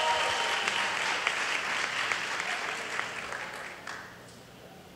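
Audience applauding, the clapping dying away over about four seconds.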